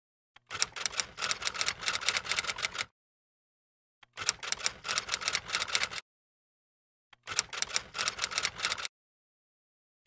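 Typewriter key-clacking sound effect: three runs of rapid clacks, each about two seconds long, with dead silence between them.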